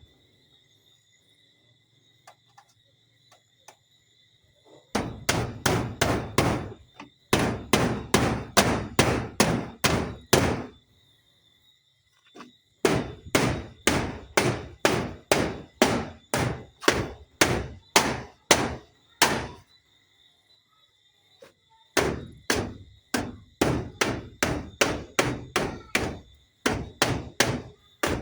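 Hammer driving nails in runs of quick, even blows, about three a second, broken by pauses of one to several seconds. The first run starts about five seconds in.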